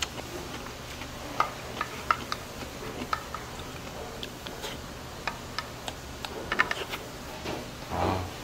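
Scattered light clicks and clinks of a spoon and chopsticks against bowls and plates while eating, with a quick cluster of clinks a little before the end. A short low hum from the eater comes just before the end.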